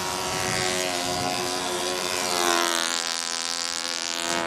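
Several small model-airplane engines buzzing at once overhead, overlapping at slightly different pitches; about halfway through one gets louder and its pitch sweeps down as a plane passes.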